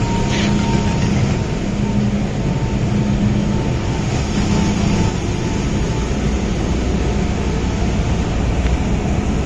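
MTR M-Train running into a station platform and slowing to a stop, heard from inside the carriage. The steady rumble of the car carries a faint on-off whine from the traction motors.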